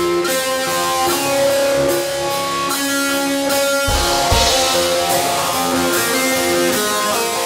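Instrumental rock music led by guitars, with sustained chords and picked notes. Deep drum hits come in about halfway through.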